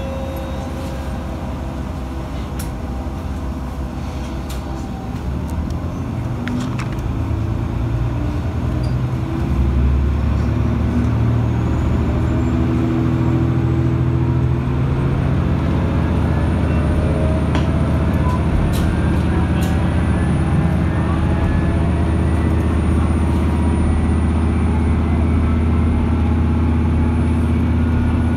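Matsuura Railway MR-600 diesel railcar's engine heard from inside the car, growing louder and stepping up to full power about a third of the way in, then running hard with a pitch that rises steadily as the railcar gathers speed. A few sharp clicks sound over it.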